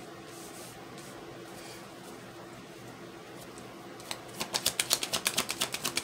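A deck of tarot cards being shuffled by hand: about four seconds in, a quick run of card-on-card flicks starts, roughly ten a second. Before that there is only a faint steady hum.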